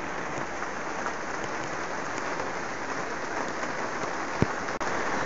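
Steady rain on the plastic sheeting of a PVC-framed greenhouse, heard from inside as an even hiss, with a single sharp click about four seconds in.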